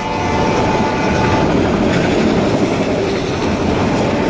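Freight train of enclosed autorack cars rolling past at close range: a loud, steady rumble and clatter of steel wheels on the rails. A faint lingering tone fades out over the first second and a half.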